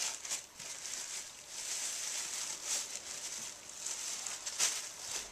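Dog tearing and crumpling green tissue paper gift wrap with its mouth: irregular crinkling and ripping, loudest about halfway in and again near the end.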